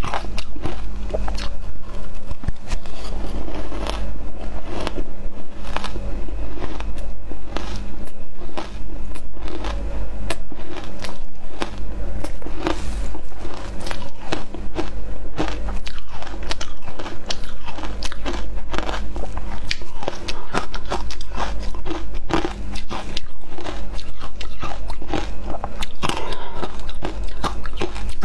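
Crushed ice dusted with matcha powder being bitten and chewed: a dense, continuous run of crisp crunches.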